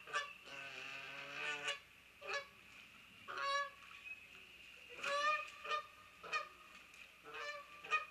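Canada geese honking repeatedly, about ten short, harsh calls in eight seconds, as they squabble on the water.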